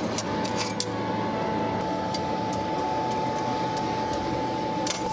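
Blown coal forge fire: a steady rushing noise with a constant high whine, and sharp crackles now and then, several in the first second and one near the end.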